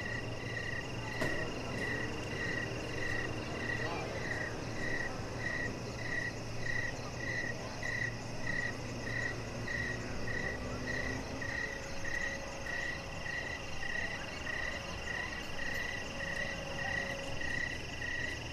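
Night-time chorus of frogs and insects by the lake, dominated by one caller repeating a short high chirp steadily about twice a second, over a faint low hum that fades about two-thirds of the way through.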